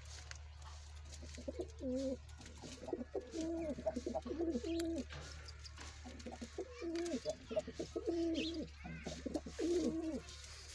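Domestic pigeons cooing: two runs of rolling coos, the first starting about a second and a half in, the second past the middle. Faint scattered clicks and a steady low hum lie underneath.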